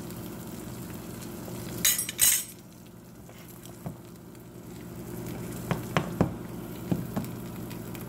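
Egg frying in butter in a nonstick skillet, a light steady sizzle. About two seconds in, two short loud scrapes of a fork against the pan as the egg is moved, and a few sharp clinks of metal on the pan around six to seven seconds in.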